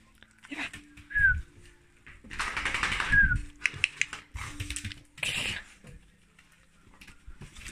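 A dog greeting at the door, its claws clicking and tapping on the tiled floor as it moves about, with two short, high, falling whimpers.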